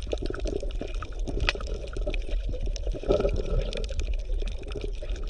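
Underwater water ambience: steady bubbling and churning water with many small pops.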